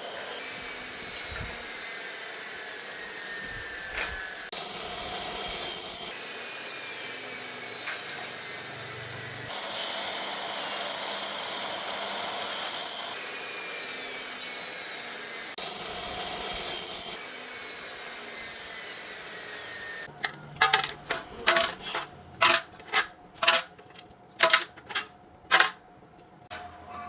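Power saw cutting aluminum door profiles: three high-pitched cuts of a few seconds each over a steady machine hum. Near the end comes a quick, uneven run of sharp metal knocks, like hammering.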